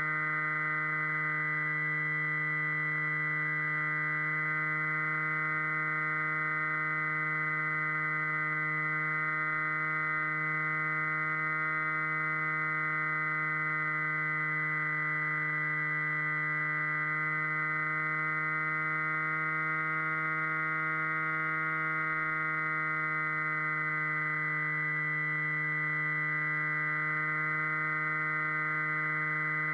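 Electric motor and propeller of an RC flying wing running at a steady throttle: a continuous hum-whine, its pitch drifting only slightly as the plane flies.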